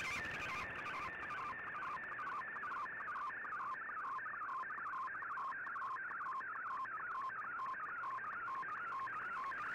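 Shortwave Radiogram picture transmission on 15770 kHz, received on an Icom IC-R8600 and decoded as an image in Fldigi. It is a warbling data tone, a sweeping pattern that repeats about twice a second as each line of a colour picture is sent, over light shortwave hiss.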